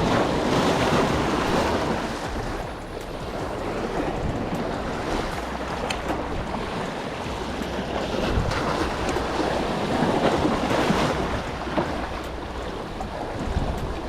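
Sea waves washing against the jetty, swelling louder in the first couple of seconds and again past the middle, with wind buffeting the microphone.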